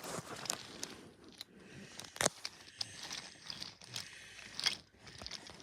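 Irregular sharp clicks and crunchy rustling close to the microphone, a few stronger clicks standing out.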